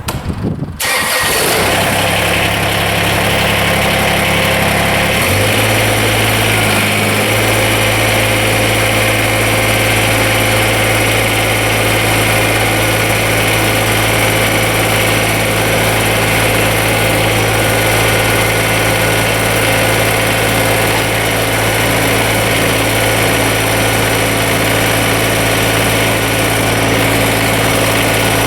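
Kubota BX24 compact tractor's three-cylinder diesel engine starting about a second in, then running steadily; its pitch steps up about five seconds in.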